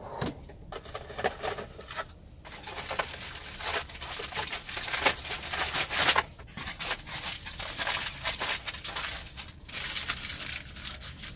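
A clear plastic bag crinkling and rustling as it is handled, with many small clicks.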